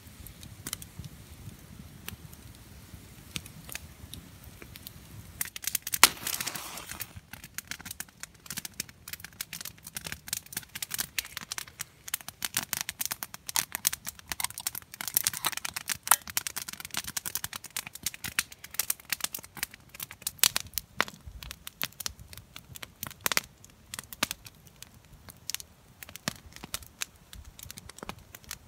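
Campfire crackling, with irregular sharp pops and snaps throughout, the loudest snap about six seconds in.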